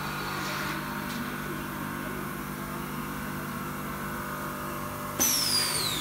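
Solar water heater inner tank side flanging machine humming steadily. About five seconds in it gets suddenly louder, with a high whine that falls in pitch.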